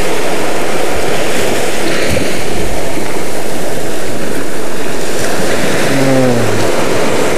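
Ocean surf breaking and washing up a sandy beach: a steady, loud rush of waves.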